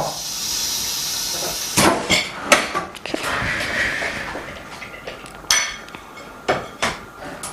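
Air hissing out of the OCA vacuum laminating machine as its vacuum is released, followed by a few sharp clicks and knocks of hard parts as the machine is opened and the screen mold handled.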